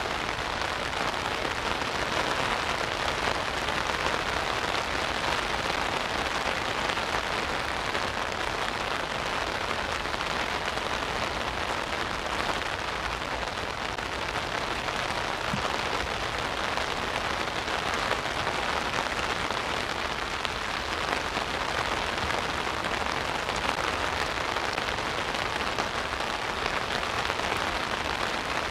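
Rain falling steadily on an umbrella overhead: a dense, even patter with no let-up.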